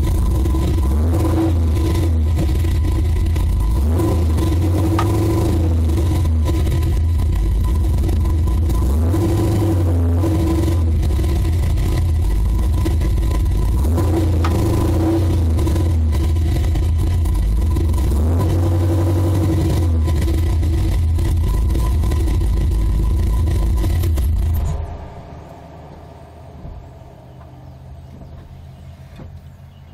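Car running with a loud, steady low rumble and scattered light clicks, filmed for the popping of its DSS aftermarket drive axles. The rumble drops away suddenly about 25 seconds in.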